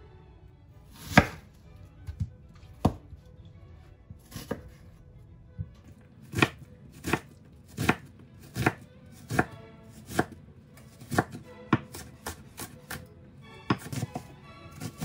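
Chef's knife dicing a red onion on a wooden cutting board: sharp knocks of the blade through the onion onto the board. A few scattered cuts at first, then a steady rhythm of about three cuts every two seconds, quickening near the end.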